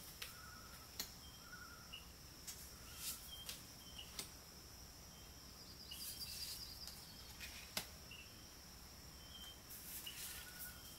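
Soft, scattered clicks of matte oracle cards being slid one at a time from the front of a hand-held deck, over a quiet room hiss with faint short high chirps.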